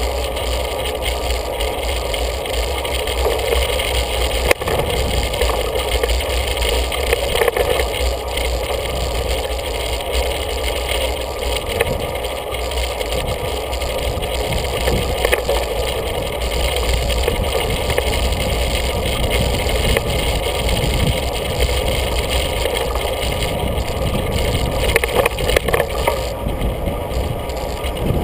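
Steady rumble of wind and road noise picked up by a camera on a moving bicycle, with a few sharp clicks and rattles, one about four and a half seconds in.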